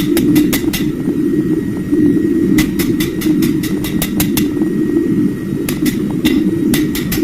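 Bursts of rapid sharp metal strikes, several to a second, over a steady low mechanical roar, in a blacksmith's workshop preparing knife steel.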